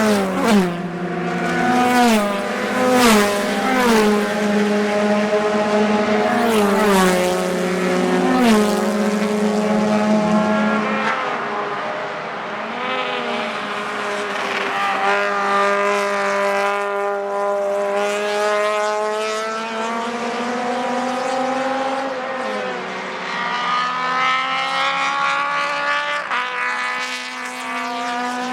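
Racing car engines at full throttle: in the first ten seconds the engine note steps down several times as the cars downshift under braking, then long, slowly rising notes as they accelerate away.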